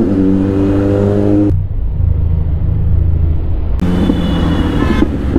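Kawasaki Z900's inline-four engine running at a steady engine speed while riding, with no revving. Between about one and a half and four seconds in the sound turns duller, then the engine note returns.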